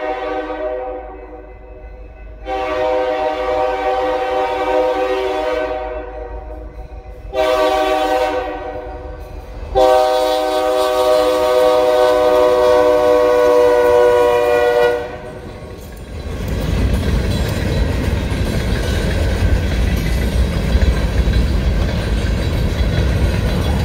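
EMD SD40 diesel locomotive's air horn blowing the grade-crossing signal: the end of one long blast, then a long, a short, and a final long blast of about five seconds. Then the steady noise of freight car wheels rolling over the crossing.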